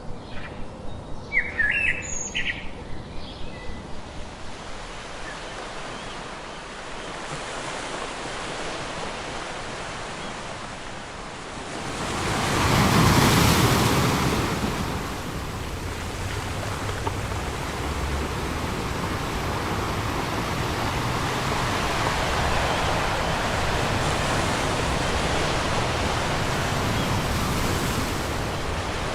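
Ocean surf: a big wave breaks with a loud rush of noise about halfway through, followed by steady wash of surf. A few bird calls and a fast pulsing sound come in the first few seconds.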